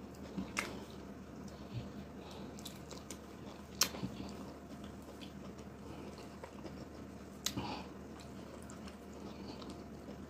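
A person eating garri and ogbono soup by hand, close-miked: soft chewing and wet mouth sounds, with three sharp clicks, the loudest about four seconds in.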